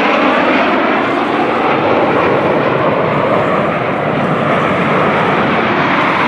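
Aermacchi MB-339 jet trainers flying past in formation, their Rolls-Royce Viper turbojets making a loud, steady jet noise.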